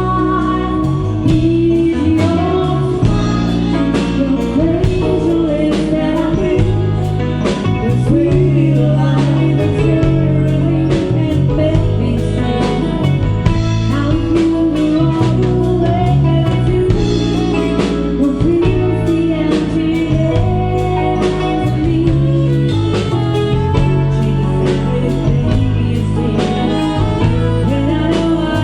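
Live band playing a song with a lead vocal, electric guitar, bass and a steady drum beat.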